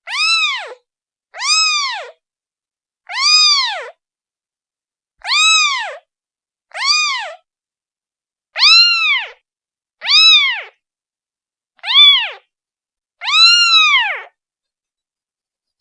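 A day-old newborn kitten meowing, calling for its mother: nine short, high meows, each rising then falling in pitch, about one every one and a half to two seconds, with silence between them.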